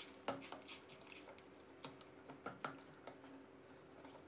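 Metal ladle stirring coconut cream and red curry paste in a stainless steel wok, frying the cream until its oil starts to separate. Faint scattered clicks and scrapes of the ladle against the pan sound over a low, steady hum.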